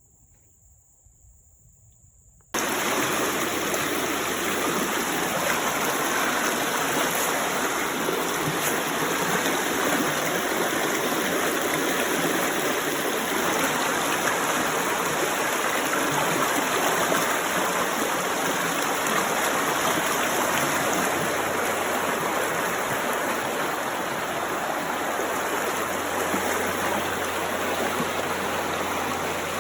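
Steady rush of running water that cuts in suddenly about two and a half seconds in, after near silence.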